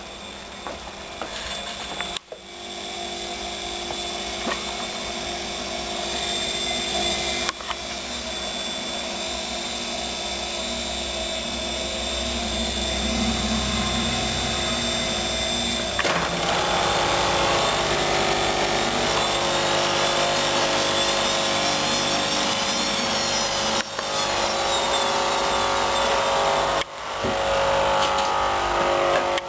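Studio WM26AAA washing machine running with a steady motor whine that grows gradually louder, the drum turning on freshly replaced bearings.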